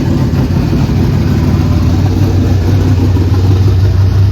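Camaro's newly installed, carbureted 434 engine idling loudly and steadily, not yet tuned.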